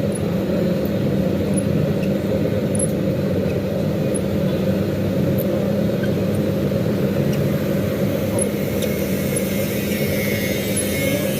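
A motor or engine running steadily, a low even drone.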